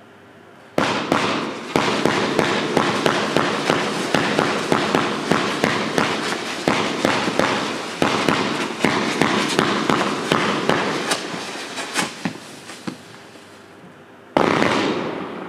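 108-shot fireworks cake, a battery of 30 mm shot tubes with mines, firing: a fast string of sharp shots, about three a second, with continuous noise of the bursts between them. The string runs for about ten seconds and thins out to a few scattered shots. After a short lull, one loud shot fires near the end, followed by a long fading hiss.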